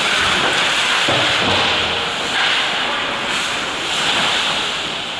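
Ice hockey skate blades scraping and carving the rink ice during play, a steady hiss that swells and fades, with a couple of dull thuds about a second in.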